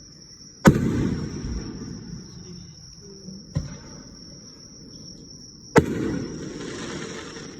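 Two loud firework shell bursts about five seconds apart, each a sharp bang trailing off in a long rolling echo, with a smaller bang between them. Crickets chirp steadily throughout.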